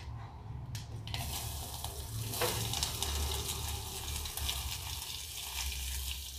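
Sliced onions hitting hot oil in an aluminium pressure cooker and sizzling over fried mustard seeds, chana dal and fennel. The sizzle starts about a second in and grows louder a little later, with faint crackles through it.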